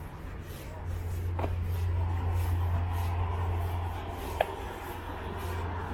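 Footsteps at about two a second over a low steady rumble that swells about a second in, with a single sharp click near the end.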